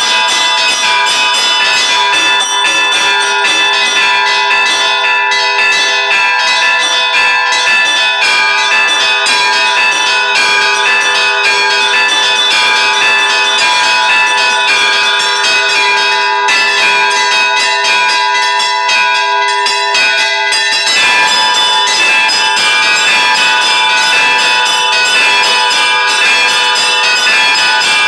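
Church bells rung for a service: several bells of different pitches struck over and over in a dense, continuous peal, their tones ringing on together. The pattern of strikes shifts about two-thirds of the way through.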